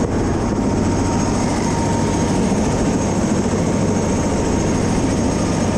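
Helicopter running close by on the ground with its rotor turning, a loud, steady engine and rotor noise.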